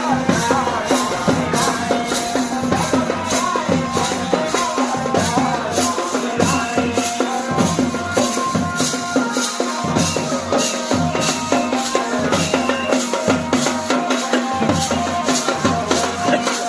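Pahari folk music for a tandi song-dance: a steady drum beat with rattling percussion and a melody over a held low tone.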